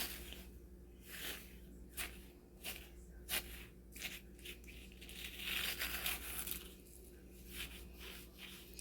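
Light handling noises on a work table: scattered soft clicks and taps, with a short rustle a little past the middle.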